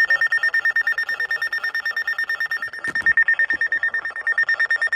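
A weather radio's alert siren sounding for a severe thunderstorm warning: a loud, high, rapidly pulsing beep that repeats evenly.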